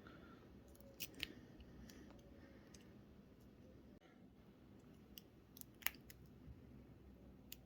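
Faint metallic clicks of a hook pick working the pins inside a Yale padlock's keyway under wrench tension, single-pin picking: a few sharp clicks about a second in, one near the middle of the second half, and one near the end.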